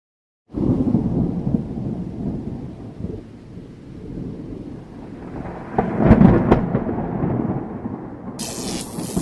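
Thunder rumbling, starting suddenly after a moment of silence, with a louder crackling peak about six seconds in and a short high hiss near the end.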